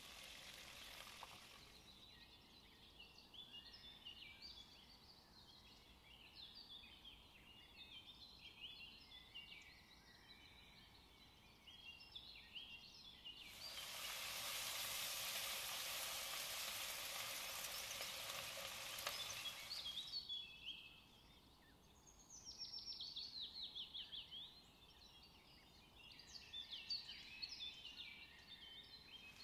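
Hot cooking oil sizzling hard in a wok for about six seconds midway while the food in it is stirred. Before and after, the frying dies down to quieter, scattered high chirps and crackles.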